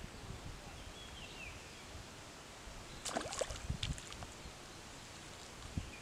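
Water splashing as a small fish is jerked out of the pond on a bamboo pole about three seconds in: a short burst of splashes and knocks over steady outdoor background noise, with one more thump near the end.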